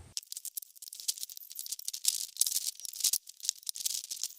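Dense, irregular clicking and rattling of small hard objects being handled and shifted about.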